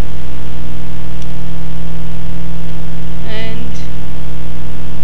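Loud, steady electrical hum in the recording, made of a low buzz with evenly spaced overtones. A brief voiced sound comes about three seconds in.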